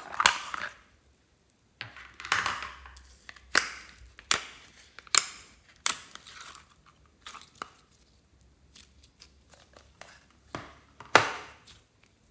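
A plastic container lid snapping open, then thick glitter slime being tipped out of a plastic tub and squeezed by hand, with a string of sharp sticky pops and clicks and softer crackling between them. The loudest pop comes near the end.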